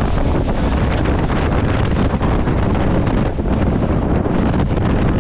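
Wind buffeting the microphone on a boat under way, over a steady rush of engine and water noise.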